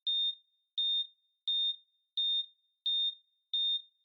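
Hospital heart monitor sound effect beeping at a steady pulse: six short, high beeps, one about every 0.7 seconds.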